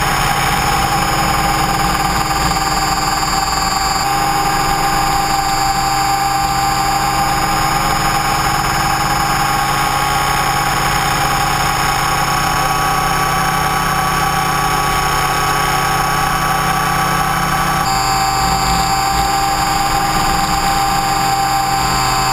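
Align T-Rex 550E electric RC helicopter heard from its onboard camera in flight: a steady high whine from the motor and drive gears over a lower hum. The pitch steps slightly about four seconds in and again near the end.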